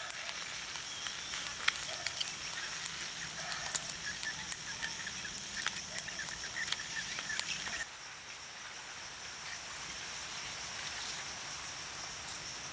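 River snails and crabs cooking on a bamboo grill over hot embers, with many quick pops and crackles over a steady high-pitched hiss. About eight seconds in the popping stops abruptly, leaving only the hiss.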